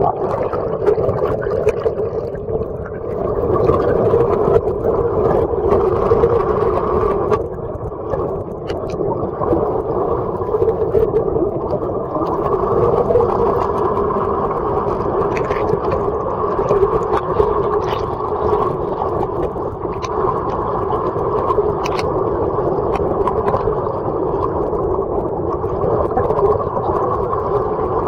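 Steady, muffled drone of a boat's engine and propeller heard underwater through a camera housing, with a few faint clicks scattered through it.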